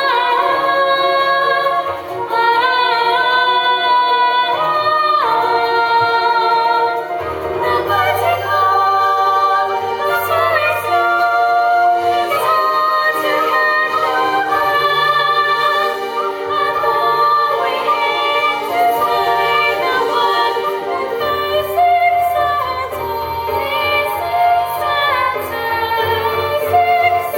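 A song from a stage musical: female voices singing a slow melody in long held notes over musical accompaniment, with a bass line coming in about seven seconds in.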